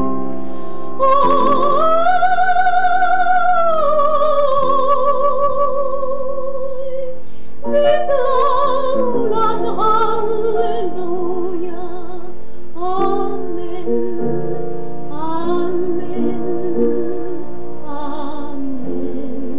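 A woman singing a Finnish hymn solo in a trained, classical style, with a strong vibrato on long held notes, over sustained instrumental accompaniment.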